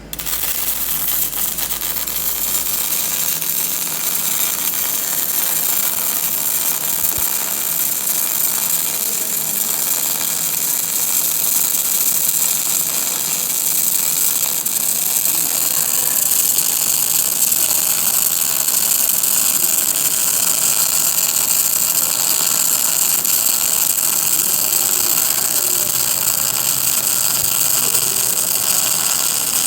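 A welding arc burning steadily: a loud, even hiss that starts suddenly and holds without a break.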